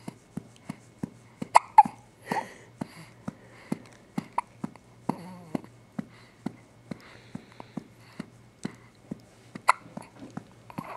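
Infant hiccuping: a few louder sharp hiccups stand out over a steady run of soft pats on her back, about three a second, as she is being burped.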